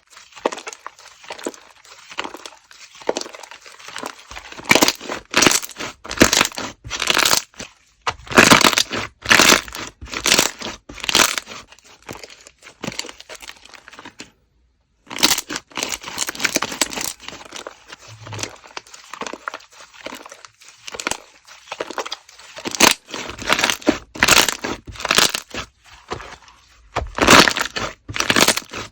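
Slime being worked by hand close to the microphone: a series of short, noisy squishing and popping strokes, with a break of about a second near the middle.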